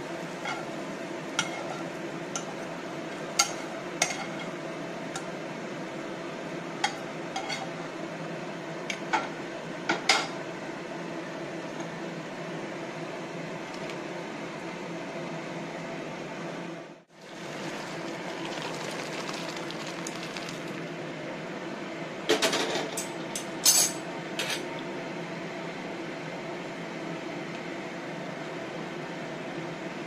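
A metal spatula clinks and scrapes against a wok and a steel plate as stir-fried vegetables are served: sharp taps scattered through the first third, then a cluster of louder clinks later on, over a steady hum. The sound briefly drops out midway.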